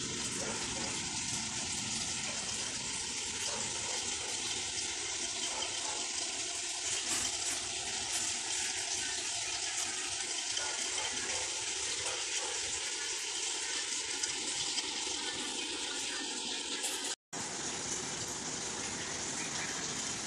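A steady rushing noise with no clear pattern in it, cutting out for an instant about 17 seconds in.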